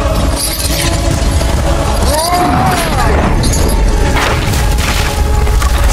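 Fight sound effects: heavy blows and impacts with men grunting and a shout that rises and falls about two seconds in, over dramatic film music with a deep steady rumble.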